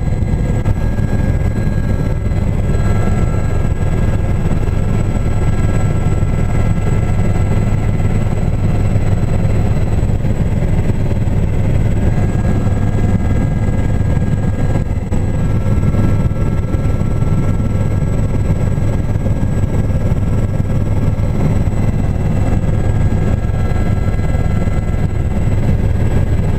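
Aérospatiale Gazelle helicopter in cruise flight, heard inside the cabin: its turboshaft engine and rotors make a loud, steady low drone with thin high whining tones over it.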